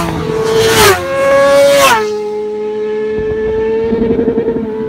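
Petrol racing motorcycles passing at speed down a straight, three in quick succession about a second apart, each engine's pitch dropping as it goes by, then a steady engine note as they pull away. Too loud.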